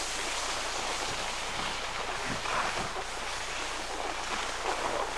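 Steady rushing noise of skiing: wind on the camcorder microphone and skis sliding over packed snow.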